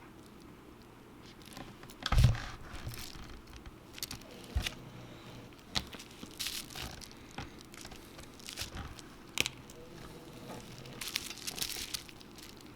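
Handling noise from a phone screen repair: crinkling and tearing of plastic film or adhesive and small parts and tools clicking against the work surface, in irregular bursts. There is a louder thump about two seconds in.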